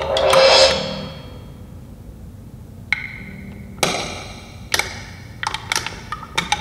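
Improvised drum-kit percussion. A loud crash at the start rings out for about a second. After a quiet gap comes a ringing, pitched ping about three seconds in, then two more strong hits and a run of quick, light stick clicks near the end.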